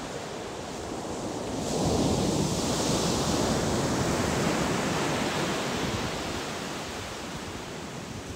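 Ocean surf on a beach: a wave breaks about two seconds in and its hissing wash swells and then slowly fades.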